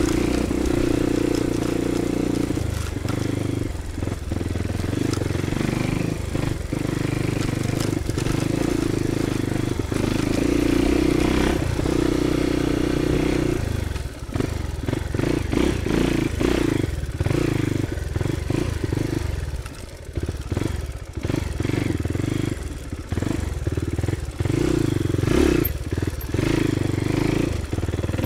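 Crossfire 250 dirt bike engine running under way on a rough, rocky trail. The throttle eases and opens, and from about halfway through the sound turns choppy, broken by knocks and rattles from the bike over the bumps.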